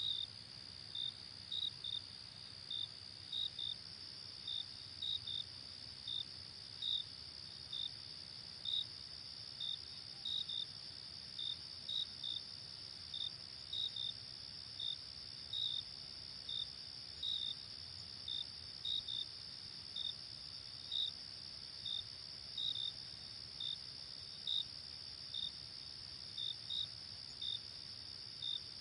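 Night insects, crickets, keeping up a steady high trill with short chirps repeating about once or twice a second.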